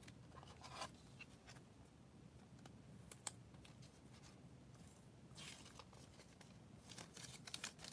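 Faint handling noise of trading cards and clear plastic card sleeves: a few soft swishes and light ticks as cards are slid and shuffled by hand.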